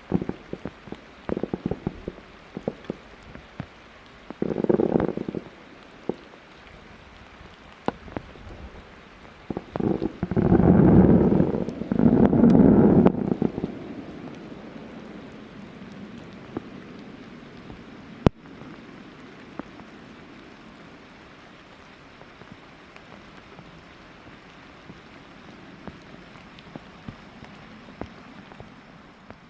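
Fireworks crackling, then deep booming shell bursts that rumble and echo: one about five seconds in and a heavier run from about ten to thirteen seconds. The booms fade into a steady hiss of rain.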